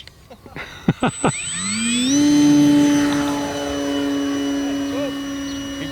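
Electric motor and propeller of an FMS Super Cub RC plane: a few knocks about a second in, then the motor whine rises in pitch for about half a second and holds steady, easing slightly in loudness toward the end.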